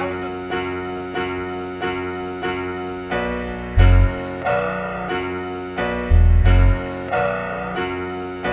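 Background music: electric piano chords struck about twice a second, with deep bass booms about four seconds in and again past six seconds.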